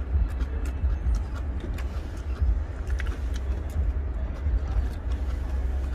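Wind buffeting the microphone as an uneven low rumble, with a few faint clicks from eating.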